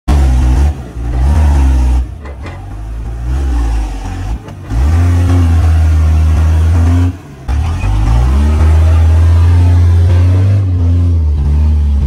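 A heavy vehicle's diesel engine revving hard, the revs rising and falling several times.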